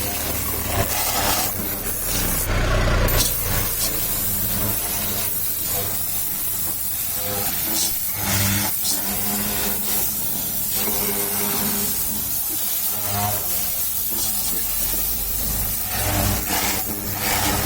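High-pressure washer spraying water: a steady hiss from the jet over the hum of the washer's pump motor.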